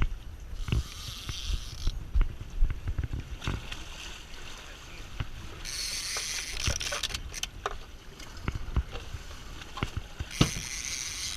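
Boat noise at sea with wind buffeting the microphone, giving a rough low rumble and scattered knocks. Three bursts of high hiss, each about a second long, come in about a second in, midway and near the end.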